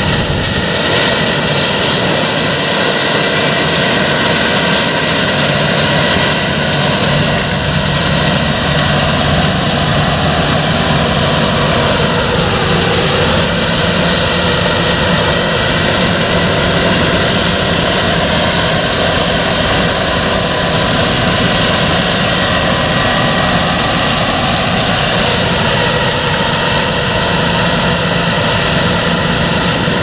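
Claas Lexion 770 combine harvester running steadily under load while cutting wheat: a constant engine and threshing drone with a high whine that dips in pitch briefly twice.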